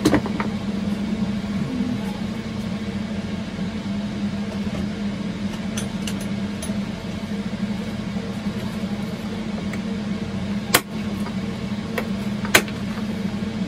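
Steady hum of computer server fans. A few sharp clicks of small plastic parts and a screwdriver on a wooden workbench: one at the start and two near the end.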